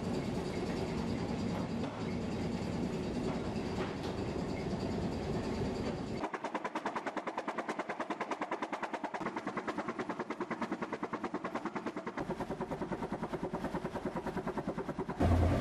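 Three-cylinder Callesen 427 CO ship's engine running steadily. About six seconds in the sound changes abruptly to a sharper, rapid even beat of engine strokes, with the deep rumble gone.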